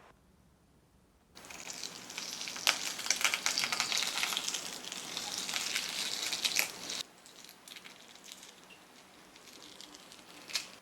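Food sizzling and crackling in a hot frying pan. It starts about a second in, is loudest for several seconds, then settles to a quieter crackle.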